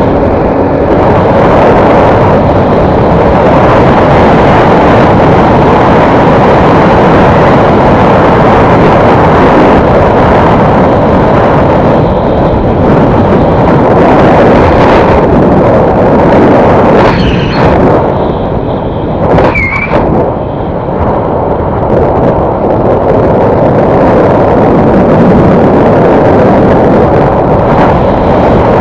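A motor vehicle running at a steady, loud level, with engine and road rumble throughout. About two-thirds of the way in, the noise dips briefly and there is a short high squeak.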